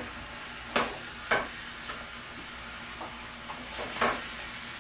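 Food sizzling steadily in a hot frying pan, with three sharp knocks of a utensil against the pan, two close together about a second in and one near the end, plus a few fainter ticks.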